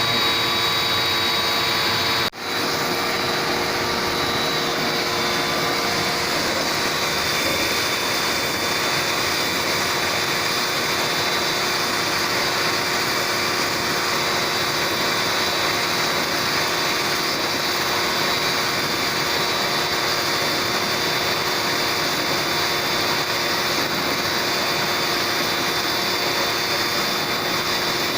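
Pressure washer running steadily as its water jet sprays an air-conditioner indoor evaporator coil, with a brief break about two seconds in.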